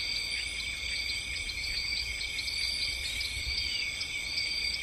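Steady shrill insect chorus: several high pitches held together, flecked with faint quick ticks, over a low rumble.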